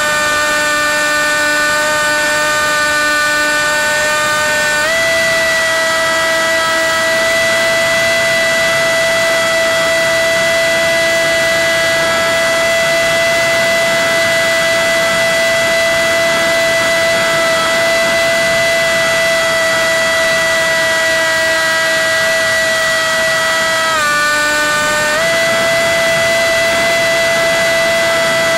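RC plane's motor and propeller in flight, picked up by the onboard camera as a steady, loud, high whine. The pitch dips slightly at the start and again about 24 seconds in, each time rising back after about a second or more as the throttle comes back up.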